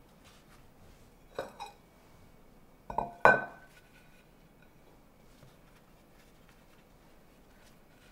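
Dishes and utensils clinking as the plate is handled: a light pair of clinks about a second and a half in, then a louder pair about three seconds in, the last one ringing briefly.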